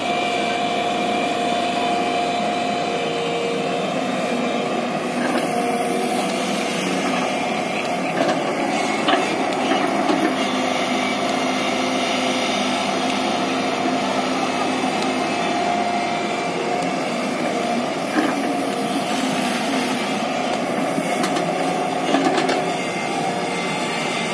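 JCB tracked excavator's diesel engine and hydraulics running steadily as it digs sand, with a steady whine over the engine and a few brief knocks scattered through it.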